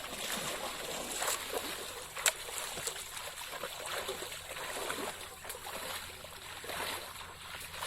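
Water splashing and trickling in small irregular bursts, with a single sharp click a little over two seconds in.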